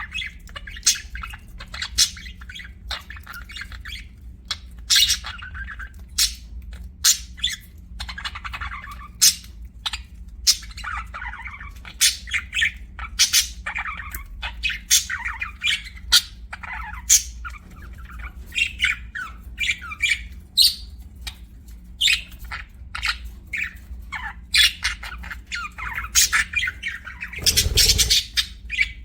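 Budgerigars chirping and squawking in a busy stream of short, overlapping calls, over a steady low hum. Near the end there is one louder, noisier burst.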